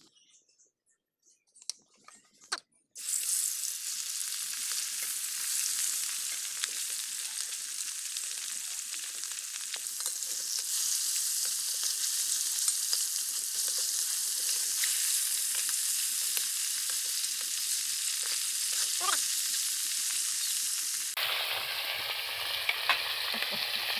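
Hot oil sizzling steadily in a kadai (wok), starting suddenly about three seconds in after a few light clicks. The sizzle shifts to a fuller tone near the end.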